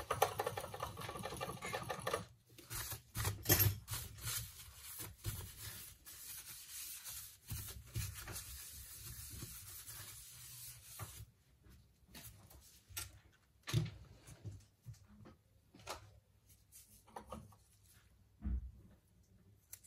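Hands and small tools working on a smartphone during a screen replacement: rubbing and scraping with scattered light taps and clicks. It is busy in the first half and thins to occasional single knocks after about eleven seconds.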